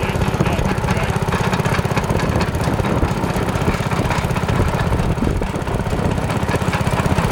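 Mini tractor's small engine running steadily with a fast, even chug, driving along the garden rows.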